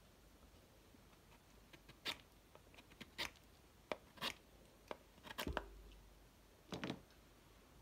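A large handmade steel knife blade shaving a stick of wood, a series of short scraping cuts about one a second, with a quick cluster of strokes near the middle.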